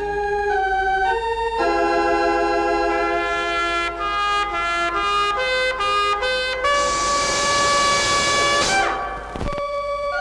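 Instrumental intro of a Hindi film song: organ and brass hold chords that move up step by step, then a loud noisy swell ends in a steep downward slide about nine seconds in.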